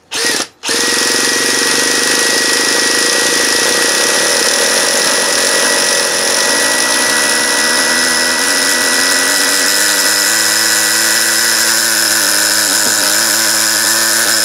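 Makita cordless drill spinning a .15 nitro RC engine through its roto-start for a first start on glow: two short blips, then a long steady spin with a steady whine. About twelve seconds in, the whine stops and the engine keeps running on its own.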